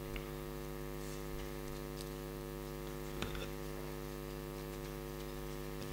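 Steady electrical mains hum, several even tones held without change, with a few faint ticks and a slightly louder click about three seconds in.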